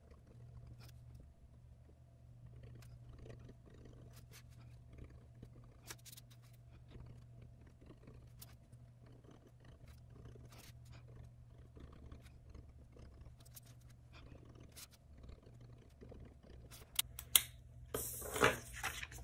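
Faint clicks and light taps of paper and stickers being handled over a steady low hum. Louder rustling and knocks come in near the end.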